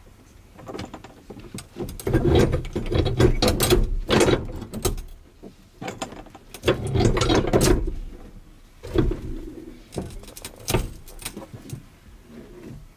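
Rear bench seat of a Chevrolet Silverado 2500HD crew cab being worked loose and shifted by hand: its metal frame and brackets clunk, rattle and creak in three bouts of handling, about two, six and nine seconds in.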